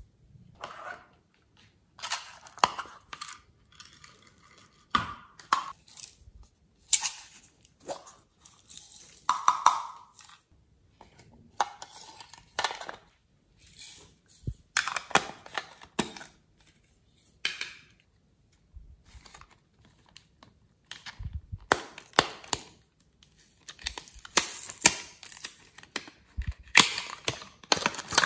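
Small plastic containers being tapped and shaken as sprinkles and glitter are poured out onto slime in a glass dish, giving irregular clicks, rattles and rustles in short bursts.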